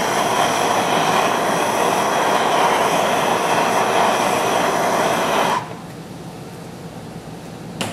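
Handheld gas torch burning with a steady hiss as its flame heats a threaded part to free thread locker. The flame shuts off suddenly about five and a half seconds in, followed by a light click near the end.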